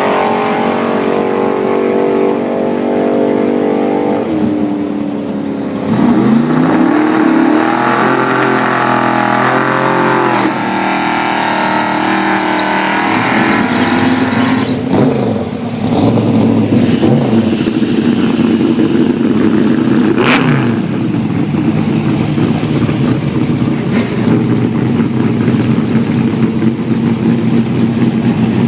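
1988 Chevrolet Monte Carlo's engine at a drag strip. It runs steadily for a few seconds, then comes in louder at about six seconds with its pitch swinging up and down several times. After that it settles into a steadier note, with a few more brief rises and falls.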